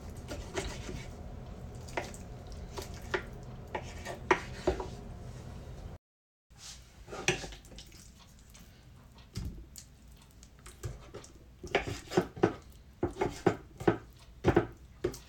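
Kitchen knife cutting raw chicken breast into cubes on a wooden cutting board: scattered knocks of the blade against the board, with a quick run of knocks near the end. The audio cuts out briefly about six seconds in.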